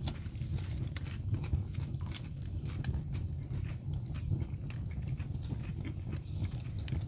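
Wood fire burning in an open fireplace: irregular crackles and pops over a steady low rumble.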